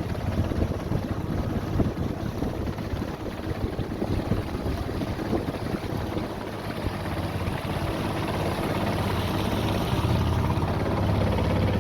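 Small boat's motor running steadily under way, a low hum that grows a little louder over the last few seconds, with wind on the microphone.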